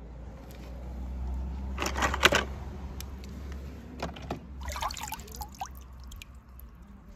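Water sloshing and splashing as a hand dips into a small tub of water and lifts out a wet toy car, with bursts of splashing about two seconds in and again around four to five seconds in.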